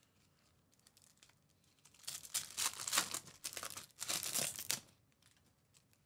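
Foil wrapper of a Topps Pristine soccer card pack crinkling and tearing as it is ripped open by hand, from about two seconds in until nearly five seconds in.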